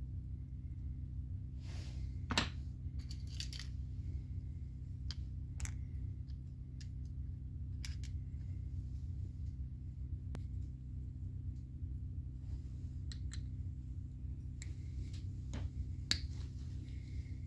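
Scattered light clicks, taps and short scrapes of small metal parts and hand tools being handled, the sharpest about two seconds in and again near the end, over a steady low hum.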